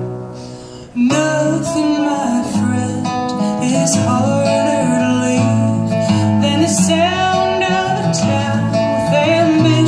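Acoustic folk band playing the instrumental intro of a song: strummed acoustic guitar with a sliding melody line over a steady bass. The music dips briefly at the start and comes back in strongly about a second in.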